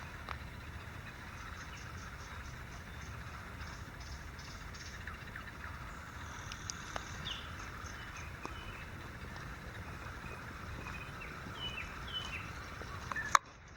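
Countryside evening ambience: birds chirping and calling now and then over a steady background hum and a low rumble, with a rapid trill in the first few seconds. A sharp click near the end is followed by a brief dropout.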